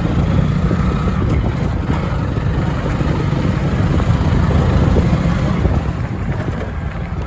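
Motorcycle on the move: a steady, loud low rumble of engine and road noise.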